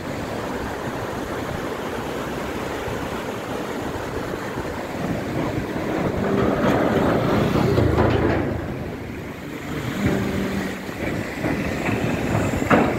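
Steady rush of a fast-flowing rocky river, with a motorcycle's engine growing louder and passing about halfway through as it rides across a temporary steel bridge.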